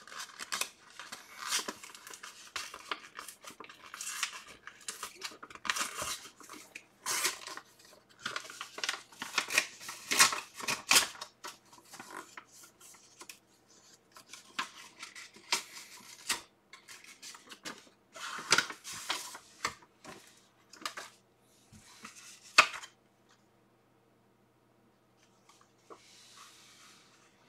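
A paper envelope being torn open and unfolded by hand: irregular bursts of ripping and rustling paper that die away near the end.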